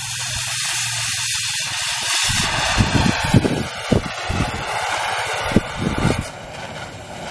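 Oxy-acetylene cutting torch hissing steadily while cutting steel, with a low steady hum under the hiss. About two seconds in the hum drops out. The torch flame keeps hissing, with uneven low thumps, as the torch is lifted from the work.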